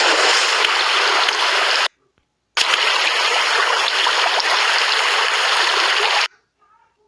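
Steady rush of flowing water, in two stretches separated by a brief gap; each starts and cuts off abruptly.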